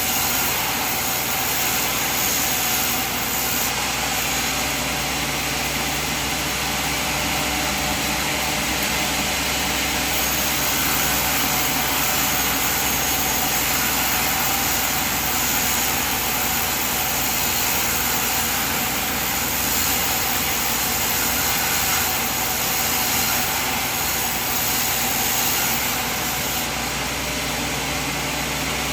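Sawmill machine running steadily, an even mechanical noise with no clear change.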